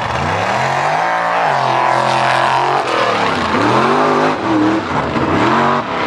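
Mud-bog truck's engine revving hard while racing through a mud pit, its pitch climbing and dropping several times as the throttle is worked.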